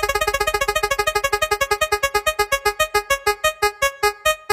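Spinning prize-wheel sound effect: one electronic piano-like note repeated as ticks that slow down steadily, from about ten a second to about four a second, as the wheel loses speed.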